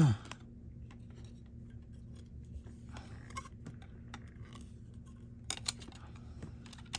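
Quiet rustling and light clicking of plastic as a trading card is handled and fitted into a clear rigid plastic card case, with a few sharper clicks near the end, over a faint steady low hum.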